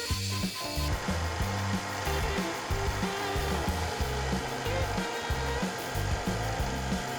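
Background music with a steady beat, joined about a second in by the steady hiss of a CNC milling machine cutting with a two-flute end mill on a trochoidal toolpath.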